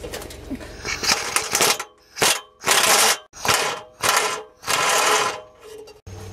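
Impact wrench hammering at a rusted, seized muffler flange bolt in about six short bursts, each a quarter to nearly a second long, with brief pauses between. It cuts off sharply near the end.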